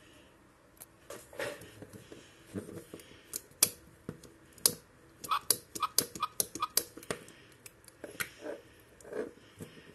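A plastic action figure being handled: irregular clicks and knocks as it is turned over and its parts are moved, with a run of four short squeaks about halfway through.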